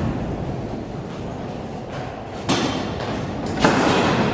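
Kick scooter wheels rolling on a concrete skatepark bowl, a steady rumble with two sudden thuds about a second apart past the middle, each followed by louder rolling.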